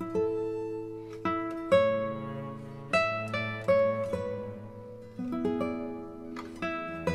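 Background music: acoustic guitar playing single plucked notes and chords, each ringing out and fading before the next.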